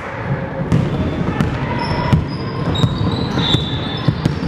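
A basketball being dribbled, a steady bounce about every 0.7 seconds, echoing in a large gym hall.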